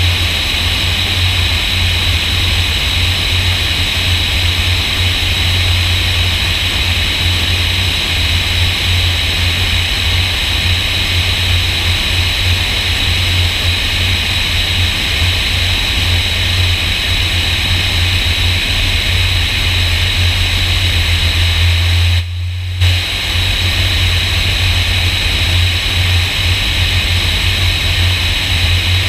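Light airplane's engine droning steadily on final approach, with wind rushing past the wing-mounted camera as a loud hiss. The sound briefly drops out for about half a second about three-quarters of the way through.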